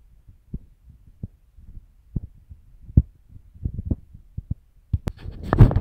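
Footsteps on a dry dirt path, heard as dull, irregular thumps about one or two a second, with a louder scuffing burst near the end.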